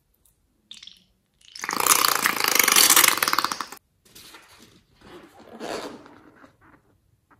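Red liquid squeezed out of a balloon into a bowl of slime, ending in a loud, rapid sputtering squirt lasting about two seconds. After that come quieter rubbing and rustling as hands handle filled rubber balloons.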